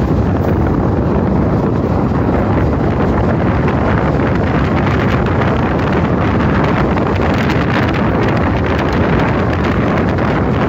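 Steady wind buffeting the microphone at the window of a moving Indian Railways passenger train, over the continuous running noise of the coach on the track.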